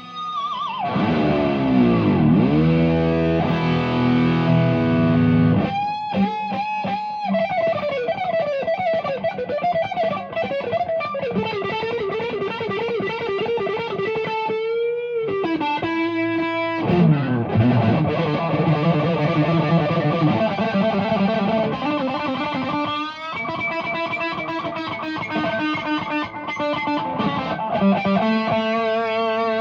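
Warmoth superstrat electric guitar played with distortion: lead lines with wide vibrato, and pitch that dives down and swoops back up near the start and again about halfway through.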